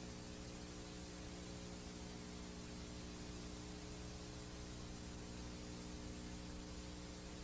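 Steady VHS tape playback hiss with a low, even hum of several steady tones underneath, from a black stretch of tape with no programme sound.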